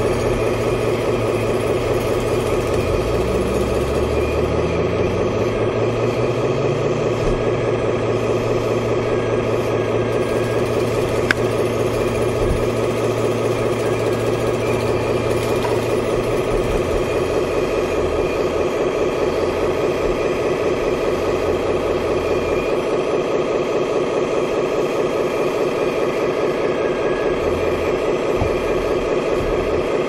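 A 1:12 remote-control hydraulic excavator model running as it digs, a steady, fast-pulsing mechanical hum from its hydraulic pump, with lower tones that shift as the arm works. A single sharp click about eleven seconds in.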